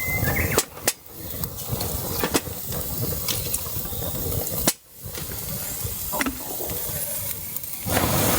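Water sounds: a steady rushing hiss, broken by a few sharp clicks and a brief drop about halfway through.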